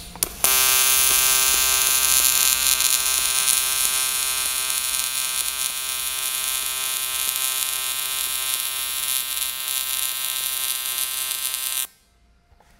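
AC TIG welding arc on aluminium at a fixed 100 amps set with a trigger switch: a steady electric buzz. It strikes about half a second in, holds steady for about eleven seconds and cuts off suddenly near the end.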